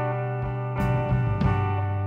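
Instrumental background music: plucked string notes sounding about every half second over held tones.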